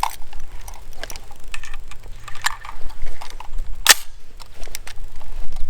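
Clicks and clacks from a Smith & Wesson M&P 15 (AR-15-type) rifle being handled while it is loaded with a single round, with one sharp, louder crack about four seconds in.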